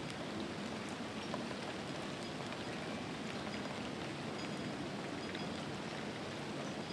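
Steady rain falling, an even patter with scattered single drops ticking.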